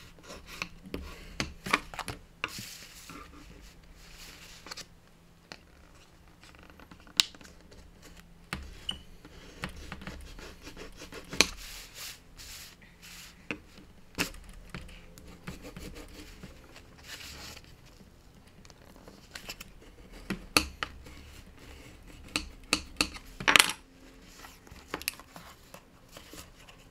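Paper and small craft tools handled on a work table: scattered sharp taps and clicks with short bursts of paper rubbing and rustling, the loudest burst near the end.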